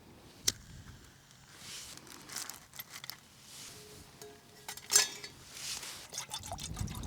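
Camping cookware being handled: a sharp click about half a second in, then small knocks and rustling, and a clink about five seconds in that rings briefly.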